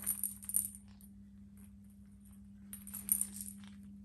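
A kitten's clear plastic toy ball with small beads inside rattling and jingling as a kitten kicks and bats it, in two short spells: at the start and again about three seconds in.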